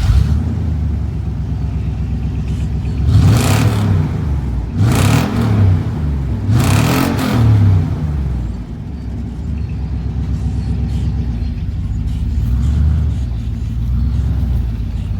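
An engine catches and runs, revved up and back down about three times in the first eight seconds, then settles into a steady run.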